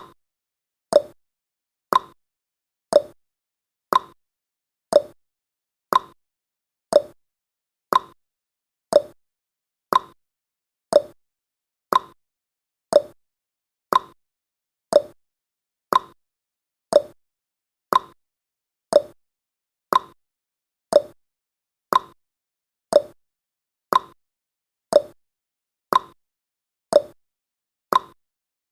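Countdown timer's ticking sound effect: a short, sharp tick once a second, alternating between a higher and a lower tick like a clock's tick-tock.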